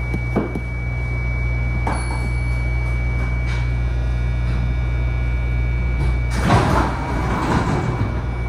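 MARTA rail car heard from inside: the train's steady low hum with a constant thin high whine, a few light clicks, and a short clattering rattle about six and a half seconds in.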